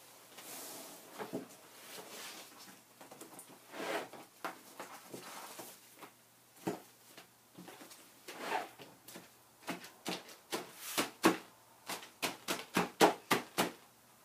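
Hands handling wet mesh netting over soapy, wet wool roving: soft rustling and swishing, then a run of quick wet pats, about two or three a second, in the last few seconds. The patting presses soapy water into the fibers so they start to felt together.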